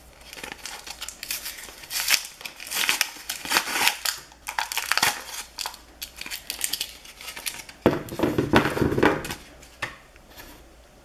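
Paper and plastic packaging crinkling and rustling as hands handle it: a brown paper bag, then a clear plastic bag of small rubber erasers. The rustling comes in irregular bursts, is loudest about eight seconds in, and fades near the end.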